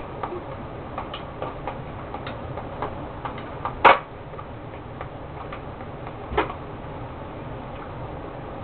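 Irregular light clicks and knocks of a plastic hand-crank ice cream maker being handled and fitted together, with one sharp knock about four seconds in and a softer one about two and a half seconds later.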